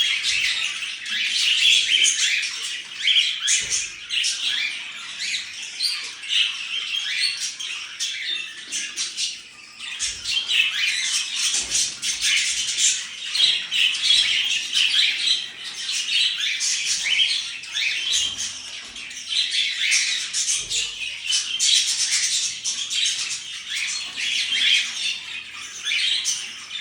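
Canary vocalizing almost without a break: rapid, high-pitched chirping and song, with a short lull about nine seconds in. A few faint low knocks sound now and then.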